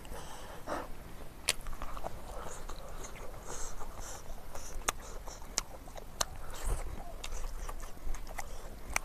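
Close-up eating sounds: a person chewing with wet mouth smacks and many sharp, irregular clicks.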